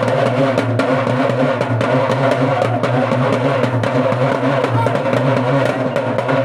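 Are frame drums, hide-covered drums beaten with sticks, playing a fast, dense, driving beat for a folk dance.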